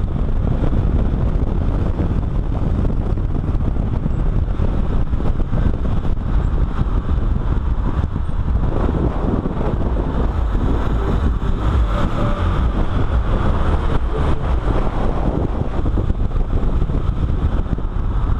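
A car driving at speed on a race track, its engine and tyre noise buried under heavy wind on the microphone, steady and dense throughout.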